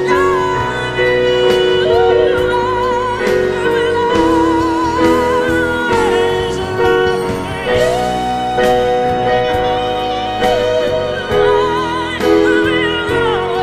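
Casio Privia digital piano playing held chords, with a high singing voice over it holding long notes with vibrato.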